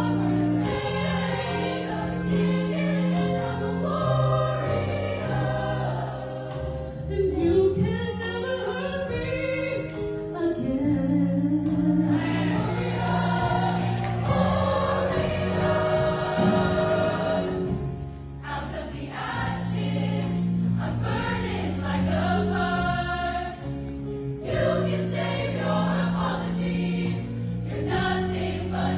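An all-female high school show choir singing a song together, many voices in chorus over low sustained notes.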